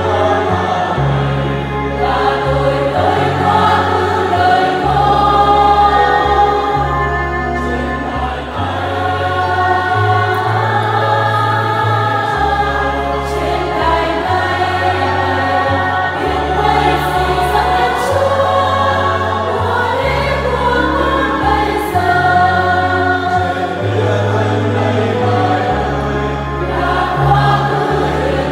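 Church choir, mostly women's voices, singing a Catholic hymn, over sustained low accompaniment notes that change every second or two.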